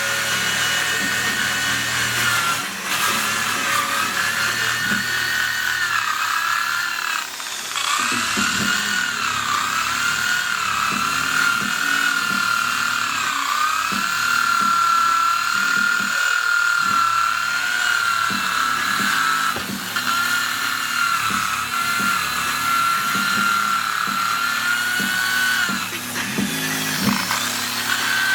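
Handheld electric power tool motor running at high speed as the wooden board is worked. Its whine dips in pitch and recovers again and again as the tool is loaded against the wood.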